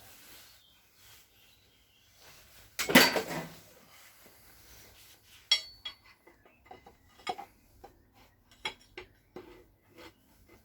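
Metal engine parts and tools clinking and clanking as pistons are taken out of a Ford Focus ST225 engine during teardown. One louder clank about three seconds in, then scattered light knocks and clicks.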